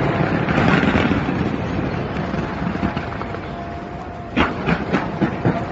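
Fireworks display heard amid a dense, rumbling din. About four seconds in comes a quick string of sharp bangs, five or so in a second and a half.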